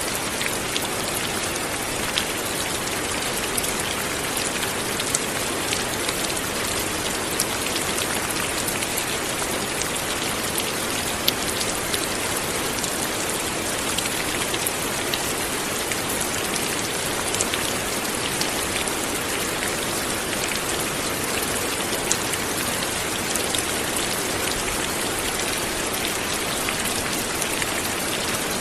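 Light rain falling steadily, an even hiss with scattered individual drops ticking sharply on a surface.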